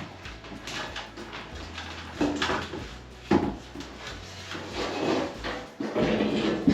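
Sheet-metal ceiling panels being handled and fitted: a string of separate scrapes and knocks.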